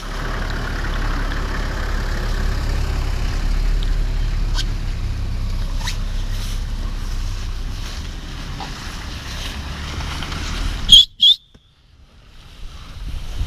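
Wind buffeting the camera microphone: a steady low rumble. It is broken about eleven seconds in by two sharp, very loud knocks, then a brief drop to near silence.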